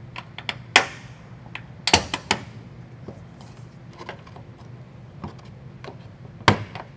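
Sharp plastic clicks and snaps from a plastic trim removal tool prying at the push-pin clips on a Chrysler 300's lower fender trim, a few loud snaps about a second in, around two seconds in and near the end, with lighter ticks between, over a steady low hum.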